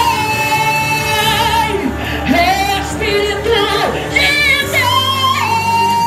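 Live gospel worship music: a woman sings into a microphone with a wavering vibrato over a church band, whose keyboard holds a steady chord underneath. The chord shifts up about five and a half seconds in, as her singing falls away.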